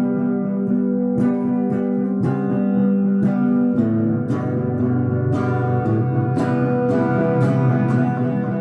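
Instrumental guitar music: chords plucked and strummed, the notes ringing on over each other.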